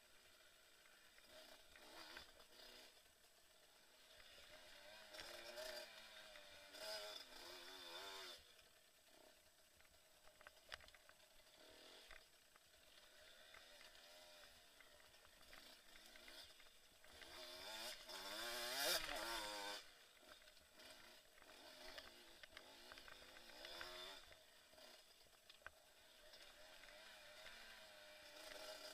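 KTM enduro motorcycle engine revving up and down as it rides a dirt trail, heard faintly, its pitch rising and falling constantly and loudest in a hard rev a little past halfway.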